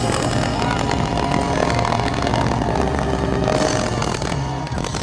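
A rock band's closing chord, with distorted electric guitar and bass held loud and ringing, cutting off just at the end.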